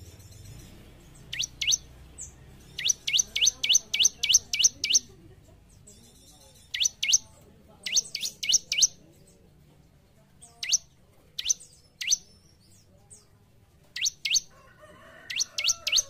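Bar-winged prinia (ciblek) calling in sharp, quick downward-sweeping chirps. The notes come singly, in pairs and in fast runs of up to about eight, with short pauses between the bursts.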